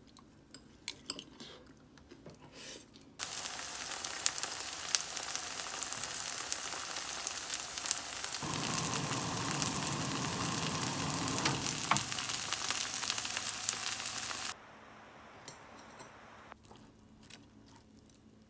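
Food sizzling and crackling in a hot frying pan. It starts abruptly about three seconds in and cuts off sharply about eleven seconds later, with a fuller, deeper sizzle for a few seconds in the middle.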